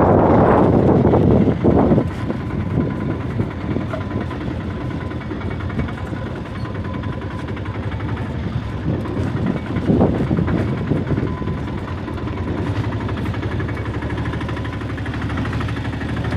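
A vehicle running along a road, heard from on board, with heavy wind on the microphone for the first two seconds and a brief louder rush about ten seconds in.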